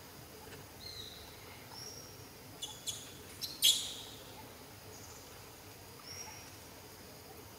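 Baby macaque giving short high-pitched squeaks, with a few sharp clicks and one louder squeal about three and a half seconds in, while an older juvenile grabs and handles it.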